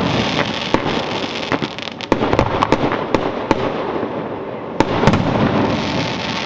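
Fireworks display: a steady crackle of bursting shells with many sharp bangs, coming thick around two to three seconds in and again about five seconds in.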